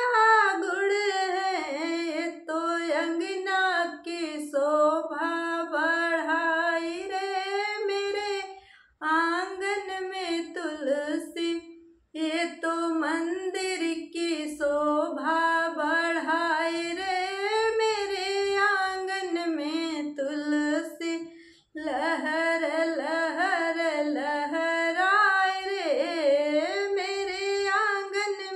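A woman singing a Hindi devotional song (bhajan) to Tulsi Maiya, solo and without accompaniment, in long, wavering lines. She pauses briefly between phrases about 9, 12 and 21 seconds in.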